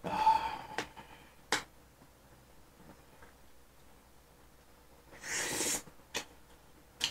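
Quiet eating sounds: a few light clicks of a metal fork and spoon against a plate. About five seconds in comes one short, hissing breath through the nose.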